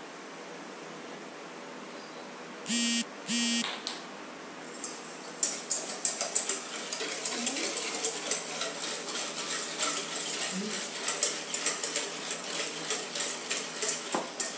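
A wire whisk beating a wet mixture in a stainless steel bowl, clicking against the metal at about three to four strokes a second from about five seconds in. Before that, two short electronic beeps.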